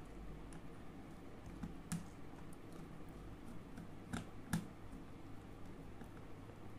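Screwdriver tightening a terminal screw on a rotary changeover switch to clamp a wire: a few small, sharp clicks, the clearest about two seconds in and two more a little past four seconds.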